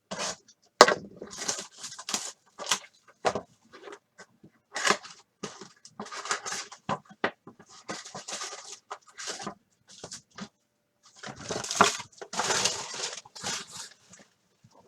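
A box of trading cards being opened by hand: irregular crinkling, tearing and tapping of cardboard and foil packs as they are pulled out, with a longer stretch of crinkling near the end.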